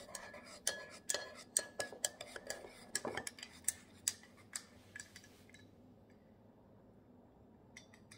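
A spoon clinking against a cup while stirring instant coffee, two or three light clinks a second. The clinking stops about five seconds in.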